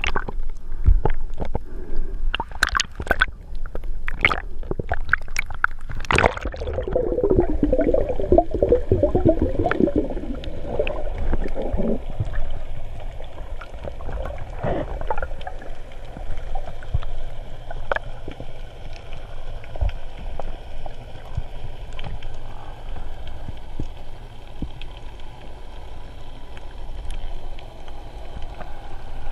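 Water splashing at the surface around a snorkeller's camera for about six seconds, then the camera goes under and the sound turns muffled. Bubbles gurgle for several seconds, followed by a steady low underwater rumble.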